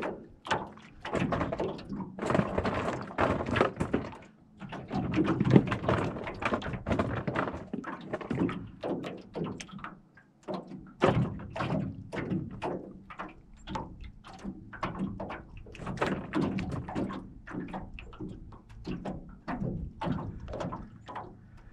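Small wind-driven waves slapping against the aluminium boat's hull: a rapid, irregular run of knocks, several a second, with a brief lull about ten seconds in.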